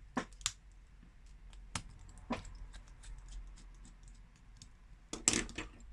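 Scattered small clicks and taps of repair tools on a smartphone being taken apart: a few single clicks in the first couple of seconds and a louder cluster of clicks near the end.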